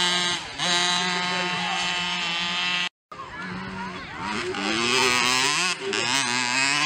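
Mini motocross bike engines running at a high, buzzing pitch. The sound cuts off abruptly about three seconds in, then an engine note rises and falls repeatedly as the throttle is worked through a corner.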